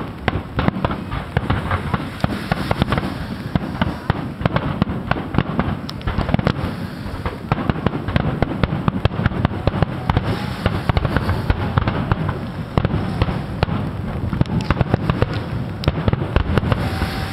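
Aerial fireworks bursting in rapid, dense succession, a continuous crackle of many overlapping bangs with no let-up.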